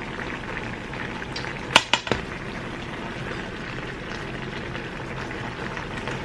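Sauce simmering and bubbling in a pan as cornstarch thickens it, a steady hiss. A few sharp clinks of a utensil against the pan come close together about two seconds in.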